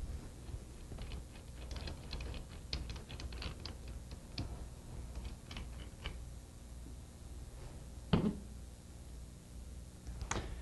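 Light metallic clicks and clinks of head bolts being drawn by hand out of the head of a Corken Z3200 sliding-vane pump and laid aside, in a quick irregular run, with two louder knocks near the end.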